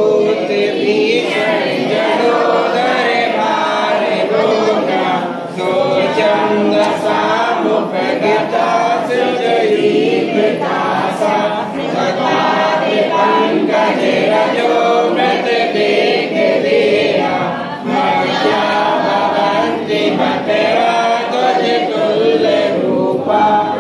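A group of voices singing a devotional chant together, phrase after phrase, with brief pauses between lines.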